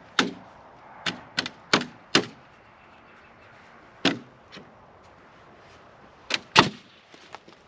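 Pneumatic framing nailer firing nails into wooden wall framing: about eight sharp shots, in quick bunches of two to four with pauses between.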